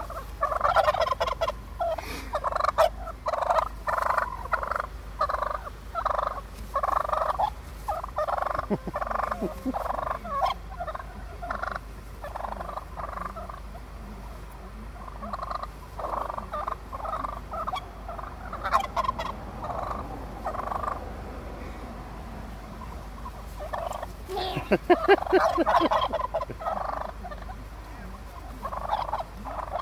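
Wild turkeys calling in long runs of quick, evenly repeated notes, broken by short lulls midway and again later on.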